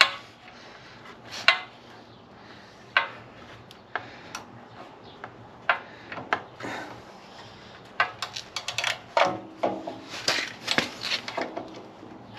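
Scattered metallic clicks and clinks of a small hand tool working a nut on a portable generator's carburetor, with quick runs of clicks about eight and ten seconds in.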